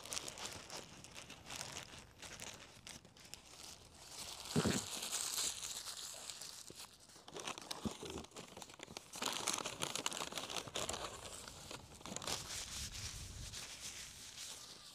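Paper burger wrapping crinkling and rustling in irregular bursts as it is handled close to the microphone, with a few soft low bumps.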